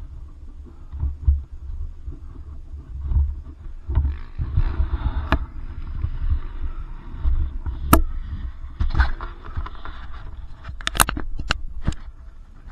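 Low rumbling thumps on a body-worn action camera's microphone, with scattered sharp clicks and knocks. The clicks bunch together about eleven seconds in.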